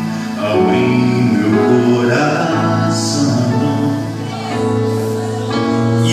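Gospel worship song: a man singing over sustained keyboard chords.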